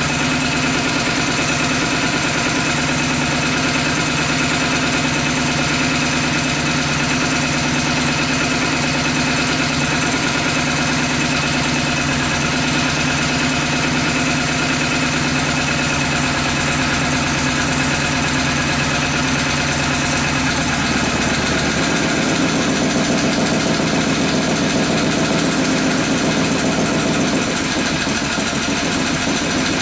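Honda 5.5 hp small engine running steadily on HHO gas and rubbing-alcohol vapour. Its note shifts about two-thirds of the way through.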